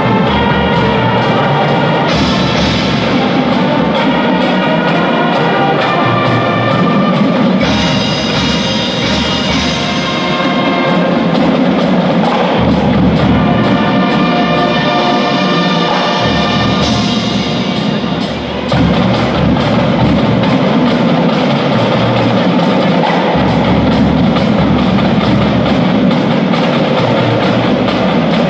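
Primary-school marching band playing its show: brass chords over marching drums and bass drum, with a front ensemble of marimbas and keyboard.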